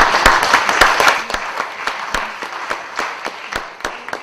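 Audience applauding, loudest at first and then thinning out into scattered single claps that fade away.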